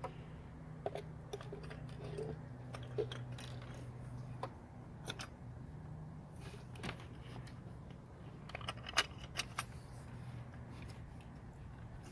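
Metal hand tools and parts clinking and rattling in a series of light, irregular clicks and clanks over a steady low hum.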